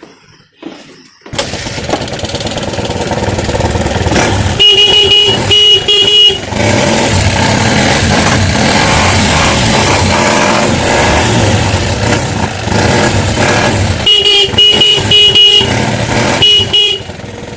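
Motorcycle engine starting about a second in and running, with its electric horn sounded in quick short beeps: three around the fifth second and a longer series near the end.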